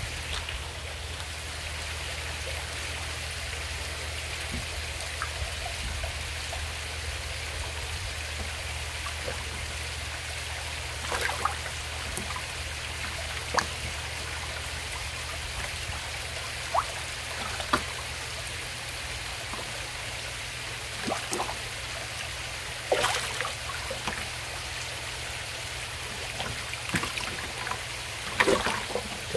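Koi pond water running and trickling steadily over a low steady hum, with a few short sharp sounds breaking through, the clearest about two-thirds of the way in and near the end.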